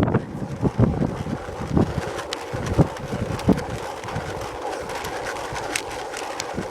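Wind buffeting the microphone in gusty low rumbles, strongest in the first few seconds and then easing, with a few faint sharp clicks later.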